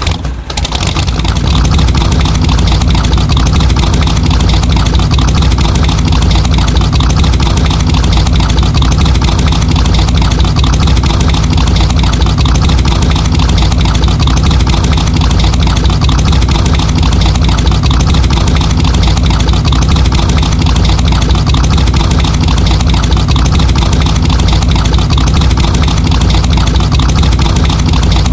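Muscle car engine just after starting, settling within about a second into a steady, deep idle.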